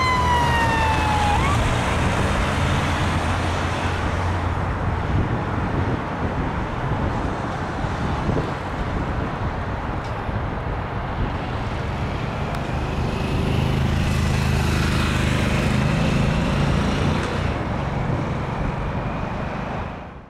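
A departing fire engine and heavy rescue unit on blue lights: a siren tone glides downward and stops about a second in, then steady diesel engine rumble and tyre and traffic noise as the convoy and following cars pull away. The sound fades out at the end.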